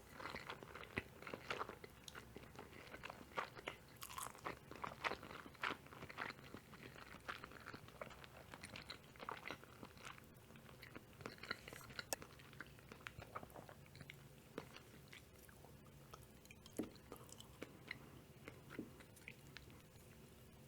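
Close-miked chewing of mushroom carbonara: a run of wet mouth clicks and smacks, thickest in the first several seconds and sparser after.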